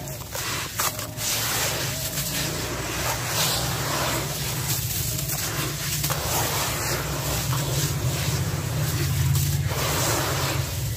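Hands stirring and scraping wet, gritty sand and water around a plastic tub, a steady rough scraping and swishing.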